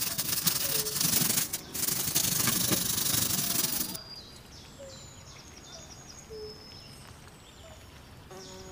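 Wet scrubbing of a derringer's wooden stock and metal parts in a basin of soapy water, loud and steady for about four seconds. It then drops suddenly to quieter brushing, with faint short chirps.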